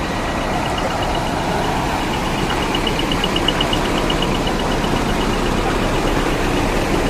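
Large trucks' diesel engines running steadily, making a dense rumble. Over it runs a rapid, high-pitched pulsing at about six pulses a second, which swells and then fades out shortly before the end.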